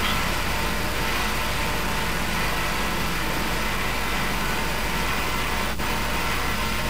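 Steady low hum under an even hiss, with no distinct events: room and recording background noise.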